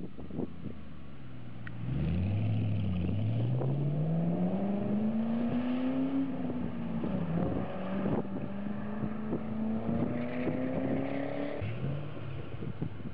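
Car engine accelerating: the engine note climbs steadily for about four seconds, dips just after the six-second mark as the throttle is eased off, then climbs again before dropping away near the end. These are the throttle lift-offs and re-plants under acceleration.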